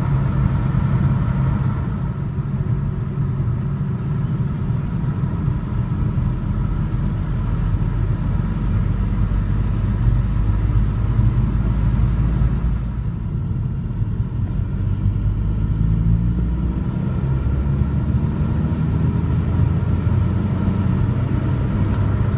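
An engine running steadily with a low rumble; its note shifts a little around thirteen and seventeen seconds in.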